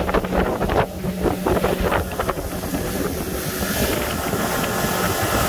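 90 hp Suzuki outboard running steadily at high speed, pushing a pontoon boat through choppy water, with wind buffeting the microphone in gusts during the first couple of seconds.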